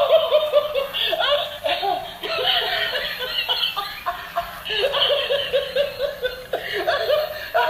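A woman laughing heartily in quick, rhythmic bursts of "ha-ha", about five or six a second. There is a brief lull about four seconds in, then the laughter picks up again.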